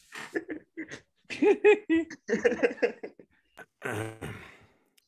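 People laughing and giggling over a video call, in short repeated bursts of 'ha-ha' sounds, with a longer drawn-out vocal sound near the end.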